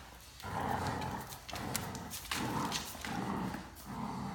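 Great Danes growling in play over a rope toy in a tug of war, a run of short growls one after another, with claws clicking and scrabbling on a tile floor.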